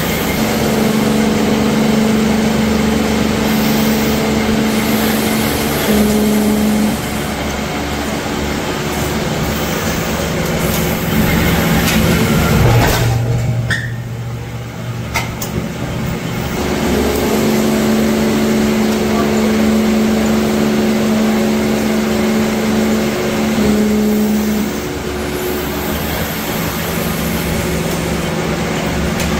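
Steady machine noise from an engine-valve hot-forging (electric upsetting) machine and press at work. A constant hum, with a steady drone that comes in for several seconds twice and a couple of sharp clicks about midway.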